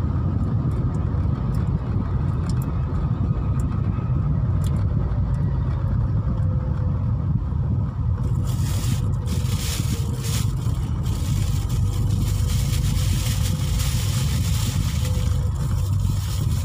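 Car driving in city traffic, heard from inside the cabin: a steady low rumble of engine and road noise. A hiss joins in about halfway through.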